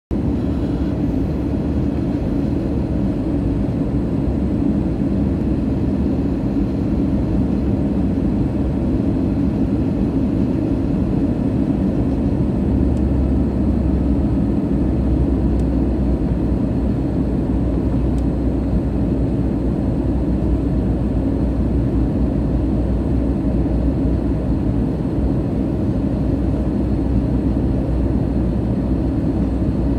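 Airbus A320 cabin noise on approach, heard inside the cabin: a steady low rumble of airflow and engines, with a faint steady high tone above it.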